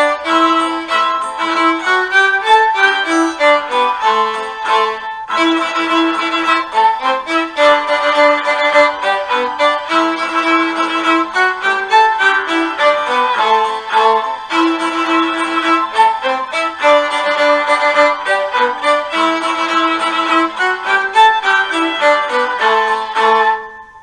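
Viola playing a sea shanty melody in theme-and-variations form along with the method book's accompaniment recording, in a steady run of separate bowed notes. The music pauses briefly about five seconds in and stops near the end.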